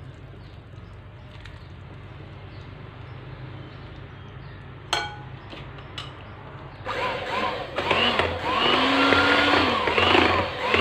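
Electric hand mixer switched on about seven seconds in, its beaters running in thick chocolate cake batter. The motor pitch rises and falls over and over as the beaters work through the batter. A sharp click comes a couple of seconds before it starts.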